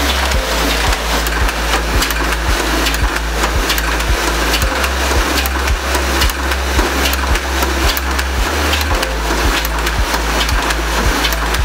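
Double-sided (perfecting) offset printing press running at speed, a fast rhythmic mechanical clatter of about three strokes a second as sheets feed through. Background music with a deep steady bass plays underneath.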